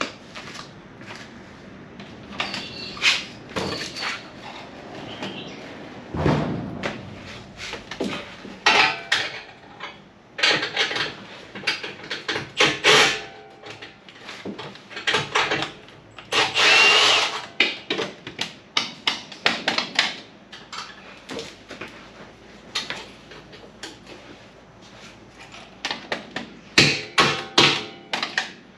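Hand tools and metal parts clicking, knocking and clanking while a titanium exhaust is unbolted from its V-band clamps and rubber hangers under a car: irregular sharp knocks throughout, with a longer scraping stretch about 17 seconds in and a quick cluster of knocks near the end.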